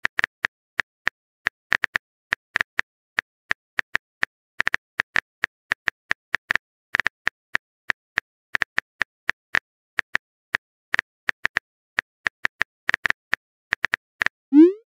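Simulated phone-keyboard typing clicks from a texting-story app: short, sharp taps at an uneven pace, several a second. Just before the end comes a short rising swoosh, the message-sent sound.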